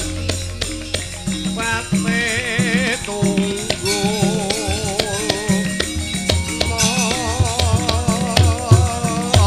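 Javanese gamelan music with drum strokes and sharp percussive clicks throughout, and a female singer's wavering melodic line coming in about two seconds in.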